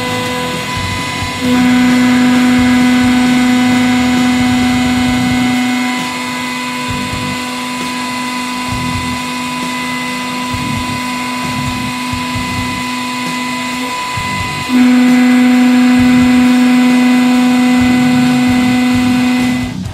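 100-ton hydraulic press's pump motor running with a steady hum while the blade moves. It steps louder twice, from about a second and a half to six seconds in and again from about fifteen seconds, then stops near the end.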